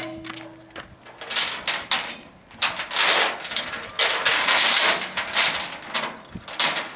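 Steel chain links rattling and clinking against a hand-worked lever load binder as it is hooked onto the chain and handled, in repeated bursts of metallic clatter.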